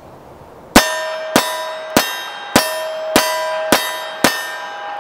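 Walther PP .380 ACP pistol firing seven shots in steady succession, about one every 0.6 seconds, each shot followed by a ringing metallic clang.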